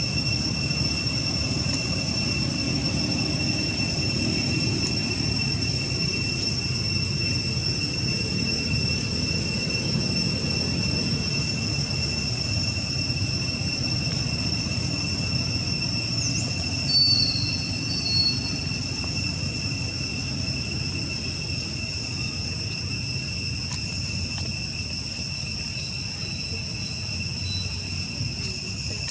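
Steady high-pitched insect drone, a few even tones held without a break, over a low rumble, with a brief high chirp about seventeen seconds in.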